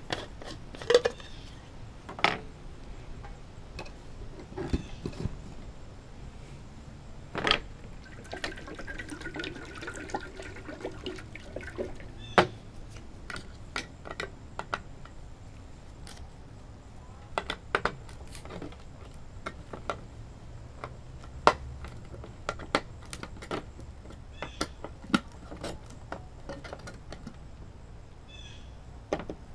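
Handling noises: scattered sharp clicks and knocks, irregular and of varying loudness, as blue gloves are pulled on and a metal can of dope is picked up and handled on a glass tabletop.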